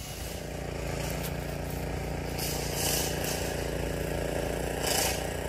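Small gas engine running steadily, the engine of a gardener's walkway edger. Two brief hissing noises cut in over it, around the middle and near the end.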